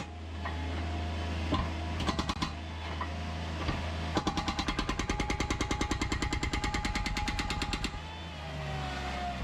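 A steady low engine hum with a demolition hammer breaking up old concrete: a rapid, even hammering of about nine blows a second starts about four seconds in and stops about four seconds later.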